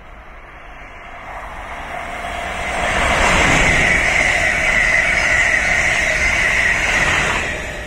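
Amtrak Acela Express electric high-speed trainset passing at speed: a rush of wheels and air that builds over the first three seconds and holds loud with a steady high whine. The high part cuts off about seven seconds in and the sound falls away.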